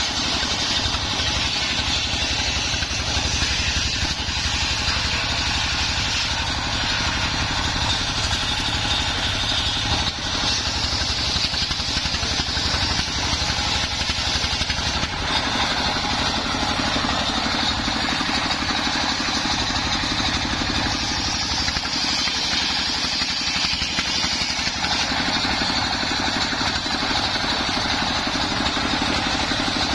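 A home-built circular saw bench, belt-driven by a stationary diesel engine, ripping a mahogany log lengthwise. The engine runs steadily under load while the blade cuts through the wood.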